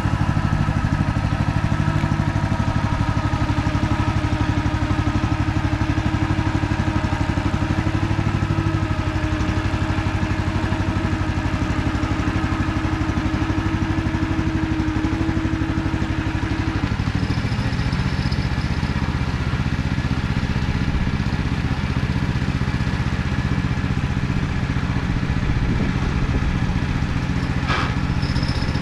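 MT8-070 Mini walking tractor's engine running steadily while ploughing. Its note changes about two-thirds of the way through, and there is a short click near the end.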